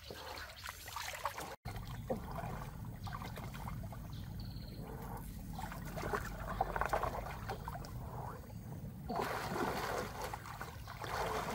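Shallow stream water splashing and sloshing as hands grope through it, over a steady low rumble. The splashing grows louder about nine seconds in.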